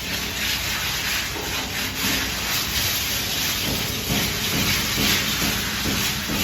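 Trowel scraping across wet plaster on a wall: a steady hissing scrape in uneven strokes, over a low steady hum.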